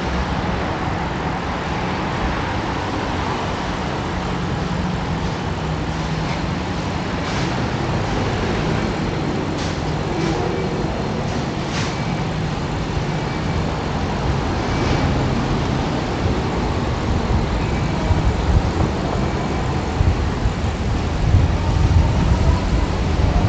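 Steady city road traffic heard from a moving bicycle, with cars and heavier vehicles passing. Wind buffets the microphone with growing gusts near the end.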